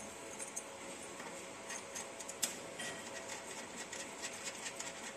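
Scattered small clicks and taps of cables and round metal multi-pin connectors being handled and plugged into the rear panel of a fiber laser marking machine's control cabinet; the loudest click comes about halfway through.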